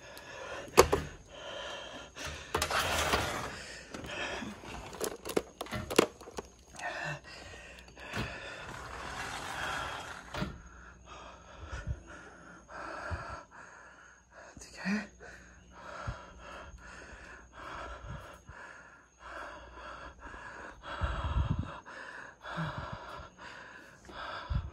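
A person breathing hard, gasping and panting in short repeated breaths, with scattered knocks and thuds from footsteps and handling of the camera.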